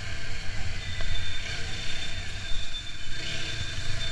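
TVS Apache RTR 160 4V single-cylinder motorcycle on the move, heard from the rider's seat: a low rumble of engine and wind as the bike slows under its rear drum brake. A thin steady high tone comes in about a second in.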